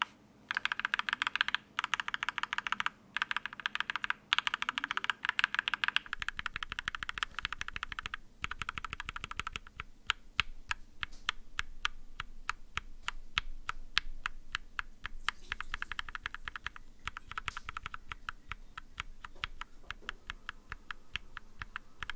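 H1 linear mechanical keyboard switches (stock H1 and Cherry-top H1) on a brass-plate KBD67mkii with GMK keycaps, being typed: a fast run of keystrokes for about the first six seconds, then repeated single-key presses, a few a second, each with a clack on bottom-out and upstroke.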